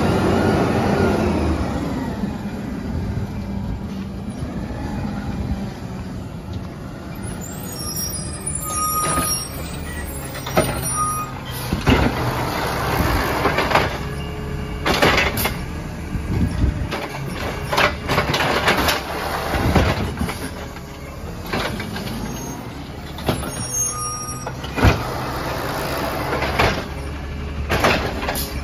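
Peterbilt 320 side-loading garbage truck running as it pulls up. Its automated arm then lifts and shakes out trash carts into the hopper, giving repeated bangs and clatters over the running engine.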